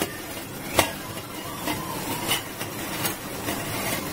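A small steel jar being handled close to the microphone: a few sharp clicks and knocks of metal over a steady background rumble.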